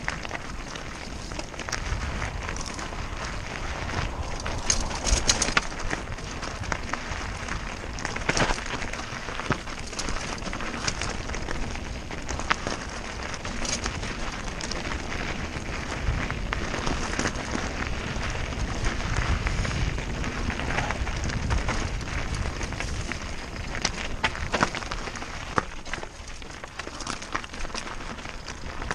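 Mountain bike descending a rocky dirt trail at speed: continuous crunch and rattle of tyres over loose stones and gravel, with frequent sharp knocks and clatter as the bike hits rocks.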